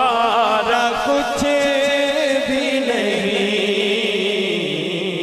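A man singing a naat into a microphone without words: one drawn-out melismatic vowel whose pitch wavers rapidly, sliding down to a lower held note about three seconds in.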